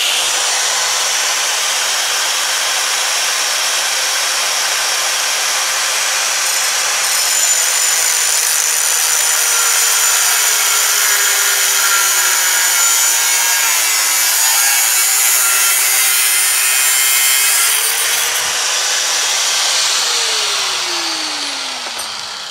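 Electric angle grinder with a thin cutoff wheel running and cutting through sheet metal clamped in a vise. The motor pitch sags under load midway, then recovers, and the grinder winds down near the end.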